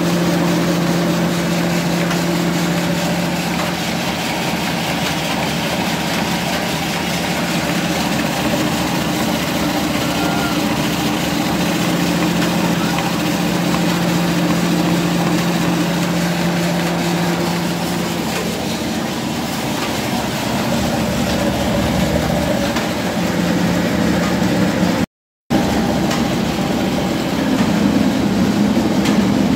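Commercial masala (spice) grinding mill running steadily under load while dry seeds are fed into it: a steady mechanical hum over a rushing grinding noise. It cuts out briefly about 25 seconds in, then runs on with a slightly different hum.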